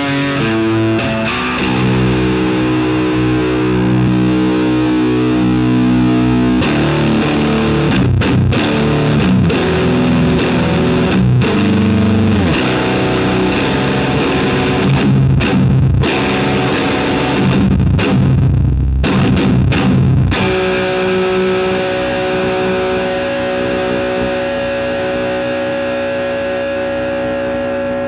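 Electric guitar played with heavy fuzz distortion from a Bass Driver and Hull Fuzz pedal wired in series, into a 100-watt OR120-clone tube amp heard through a cab simulator. Held chords give way to a riff with short stops, then about twenty seconds in a single chord is struck and left ringing to the end.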